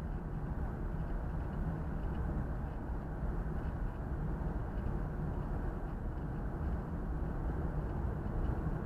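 Steady road noise of a car driving along: a low tyre and engine rumble that stays even throughout.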